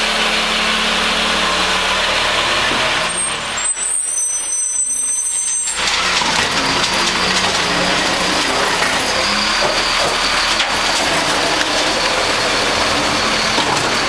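Garbage truck with an automated lifting arm working at close range: its engine and hydraulics running as a steady, loud noise. About three to four seconds in, a high whistling squeal sounds for about two seconds.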